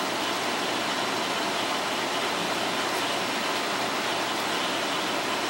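Steady, even hissing noise with no pitch or rhythm, and a faint click about three seconds in.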